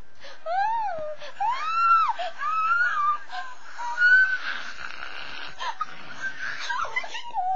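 High-pitched wailing vocal cries, four or five in the first three seconds, each rising and then falling in pitch, followed by a breathier, noisier stretch about four seconds in.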